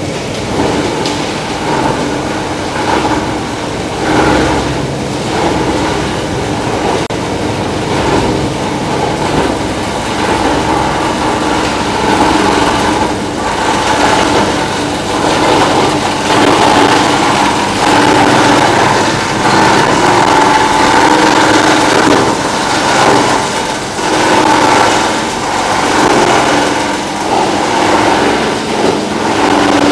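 Plastic recycling line machinery running: a loud, steady mechanical drone with a hum, and scattered clatter, growing a little louder about twelve seconds in.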